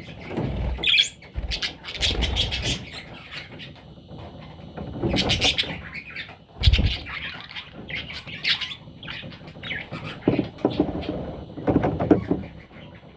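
Budgerigar chicks chirping and squawking in short, irregular bursts, mixed with scattered low bumps and rustling.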